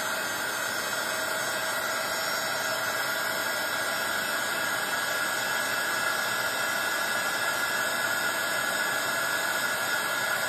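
Craft heat tool (embossing heat gun) running, blowing hot air to dry the ink on a small die-cut paper piece: a steady rushing hiss with a faint steady whine.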